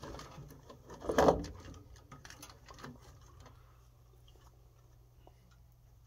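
Faint clicks and small plastic rattles as a furnace's pressure-switch assembly is unscrewed and pulled free, with one brief louder knock about a second in. A low steady hum runs underneath.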